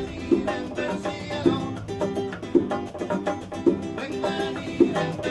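Acoustic guitar strummed in a Cuban son rhythm, dense chords with a strong accent about once a second.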